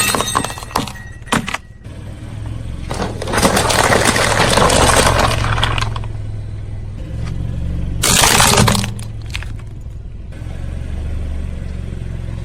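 A car tyre rolling over and crushing crunchy objects, with crackling and crunching bursts about three and eight seconds in and a few sharp cracks early, over the low, steady run of the car's engine.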